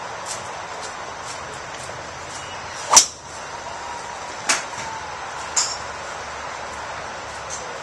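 A golf driver striking a ball on a full-speed practice drive: one sharp crack about three seconds in. Fainter cracks and clicks of other shots along the range come before and after.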